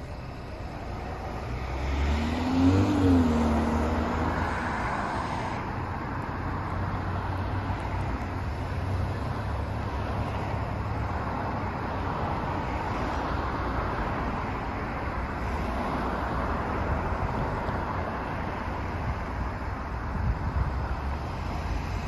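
Road traffic at a city intersection: cars passing and pulling away over a steady hum of traffic. About three seconds in, one vehicle's engine rises and then drops back in pitch as it accelerates, the loudest moment.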